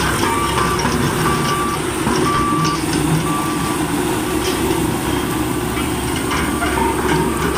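Vehicle reversing alarm beeping in short tones, about one a second, over a steady engine rumble.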